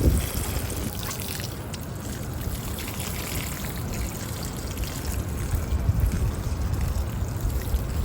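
Water being poured steadily onto the soil around newly planted strawberries, watering them in.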